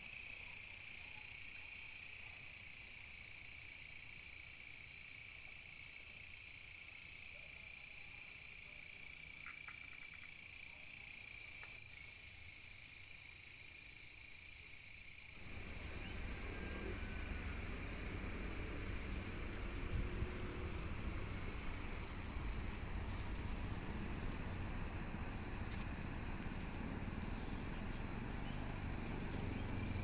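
Insects in grass shrilling in a steady high-pitched drone, with a short chirp repeating about once a second. About halfway through, a low rumble joins in.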